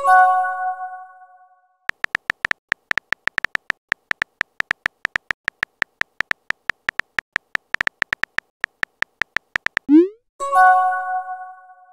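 Texting-app sound effects: a message chime rings out and fades, then rapid evenly spaced keyboard tap clicks run for about eight seconds while a message is typed. Near the end comes a quick rising swoop as the message is sent, and another chime that fades out.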